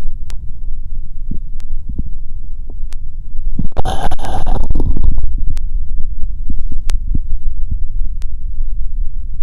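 Body sounds picked up through an electronic stethoscope: a continuous low rumble with scattered faint clicks, and a brief louder, hissy burst about four seconds in.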